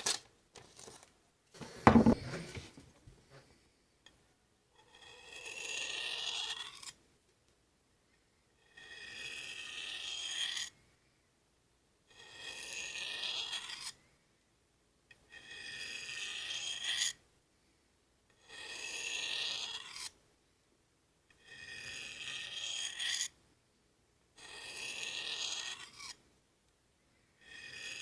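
A knife blade drawn slowly along a Gossman sharpening steel, a long rasping stroke of about two seconds repeated seven times at an even pace, each stroke growing louder toward its end. A loud thump about two seconds in.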